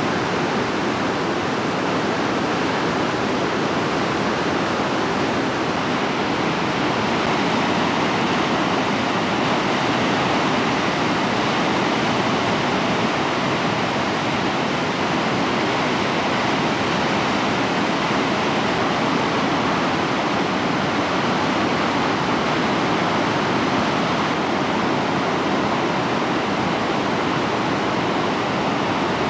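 Bow River whitewater rapids: a steady, loud rush of fast-flowing water pouring over rocks, unchanging throughout.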